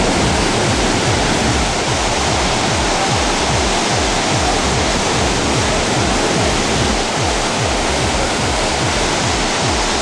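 Athirappilly Falls, a large waterfall in heavy flow, rushing steadily and loudly into the river below, with a low rumble underneath.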